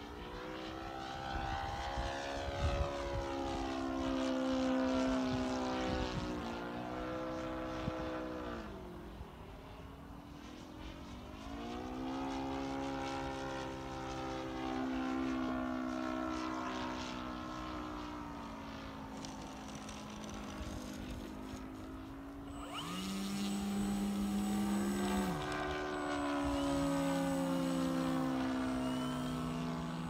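Radio-controlled Seagull Extra 300 model aerobatic plane flying, its engine and propeller changing pitch, falling away and climbing again as it throttles and passes through manoeuvres. A second, lower steady hum starts about two-thirds of the way in and cuts in and out a few times.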